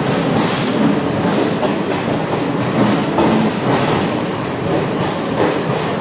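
Express passenger train's coach wheels rumbling and clattering over rail joints and points as it runs into a station, heard from aboard the moving train.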